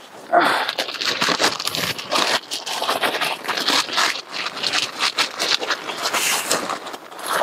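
Plastic packaging crinkling and rustling as a new brake caliper is pulled out of its bag, starting about a third of a second in.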